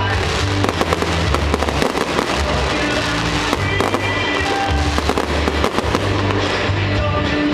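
Fireworks bursting and crackling in quick succession over loud music with held bass notes.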